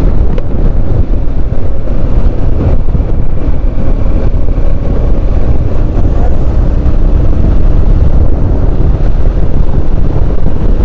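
Wind blast on the microphone of a moving motorcycle: a loud, steady low rumble, with the motorcycle's running and road noise faintly beneath it.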